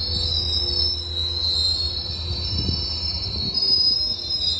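Metrolink commuter train's bi-level coaches rolling past, their wheels squealing in a high, wavering whine over a steady low rumble.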